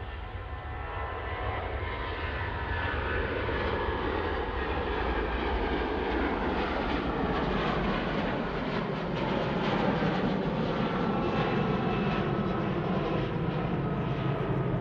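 Boeing 737-800 jet airliner taking off at full thrust. The jet engine noise builds over the first few seconds and then holds loud and steady as the aircraft climbs away. Through the rush, several whining tones slide slowly down in pitch.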